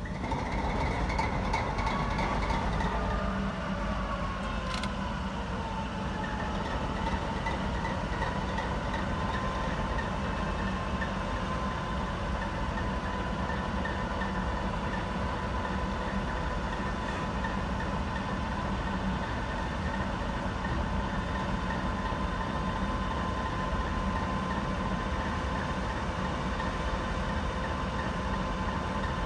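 The V16 diesel engine of a Ludmilla class 230 diesel locomotive (a Kolomna 5D49), just started and running up to a steady idle. A low rumble sits under a whine that dips in pitch over the first few seconds, then holds steady. There is a single sharp click about five seconds in.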